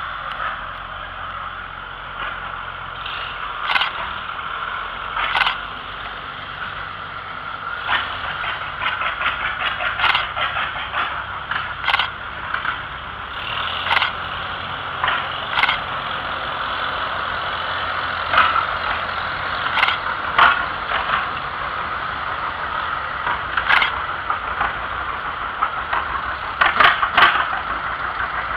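Engines of several antique farm tractors running as they drive slowly past one after another, a steady drone broken by sharp irregular knocks every second or two.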